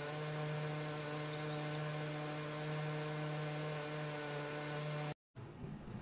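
A steady, even machine hum with a row of higher overtones over a light hiss, cutting off abruptly about five seconds in.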